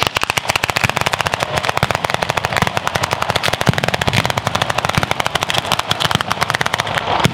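Batteria alla bolognese ground fireworks: a chain of firecrackers going off in rapid succession, about ten sharp bangs a second, starting abruptly and continuing without a break like machine-gun fire.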